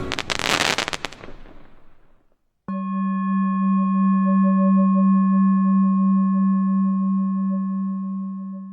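A crackling burst dying away over about two seconds. After a short silence, a steady low ringing tone with faint higher overtones starts suddenly, holds for about six seconds and fades at the end.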